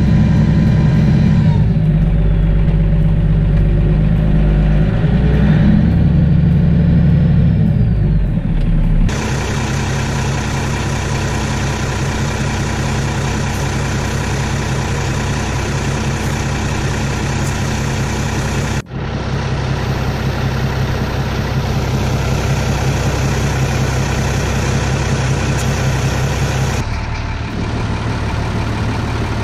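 Massey Ferguson 399 tractor's six-cylinder diesel engine running at idle, louder for the first nine seconds or so, with abrupt changes in the sound where stretches are cut together.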